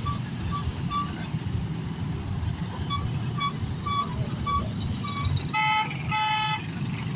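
Road traffic running as a steady low rumble, with a series of short high beeps and two longer vehicle horn honks near the end.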